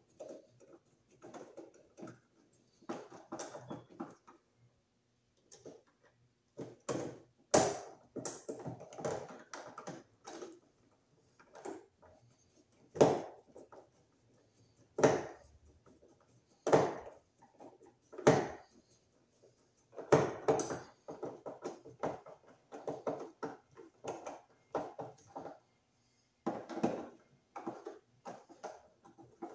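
Hand screwdriver turning the mounting screws of a wall switch into a metal electrical box: irregular scraping and clicking of metal on metal, with several sharper clicks in the middle.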